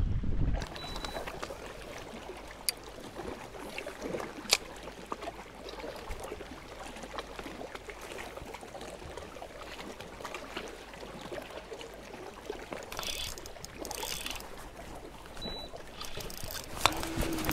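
Small waves lapping and trickling against a kayak hull, with a few light knocks now and then.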